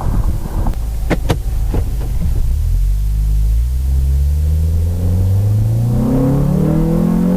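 Acura TSX with a Yonaka catback exhaust and Apexi intake accelerating, its engine note climbing steadily in pitch from about two seconds in. A few sharp clicks come about a second in.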